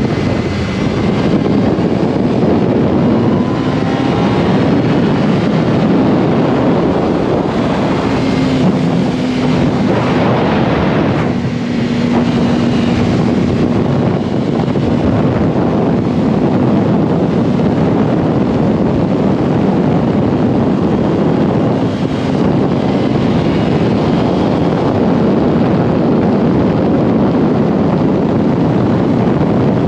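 Yamaha R1 sport motorcycle's inline-four engine running while riding, under a heavy rush of wind noise on the microphone. The engine note shifts a little in pitch now and then.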